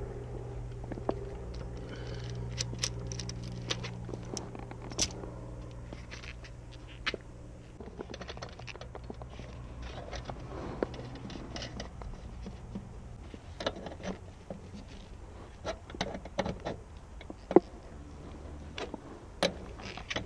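Small metal hand tools clicking and clinking against the brass service valves and fittings of a mini split condenser, in scattered sharp taps, the loudest near the end. A steady low hum runs underneath and stops about two-thirds of the way through.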